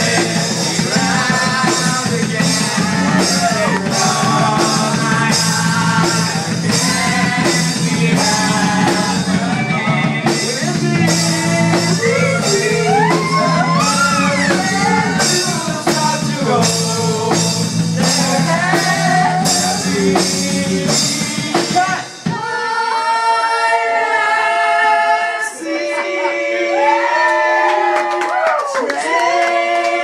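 Live band playing a rock song with singing over a steady drum beat and bass. About two-thirds of the way through, the drums and bass drop out and the voices carry on singing alone.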